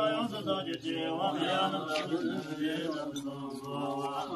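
Tibetan Buddhist monks chanting prayers together in a continuous stream, here the dedication (回向) recited over the list of names at the fire offering.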